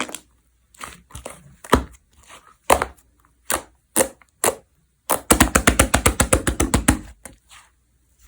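Slime being played with by hand: separate wet pops and clicks, then, about five seconds in, a fast run of popping at roughly ten pops a second lasting about two seconds.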